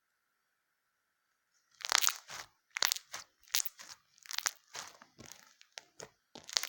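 Crunchy slime squeezed and pressed by fingers, giving a crisp crackling crunch roughly every three-quarters of a second, starting about two seconds in.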